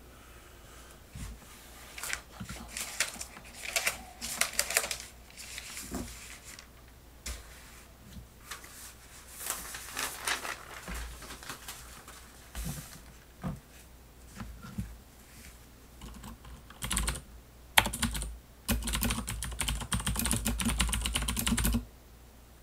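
Typing on a Das Keyboard mechanical keyboard: runs of quick key clicks with pauses between, the longest and loudest run near the end.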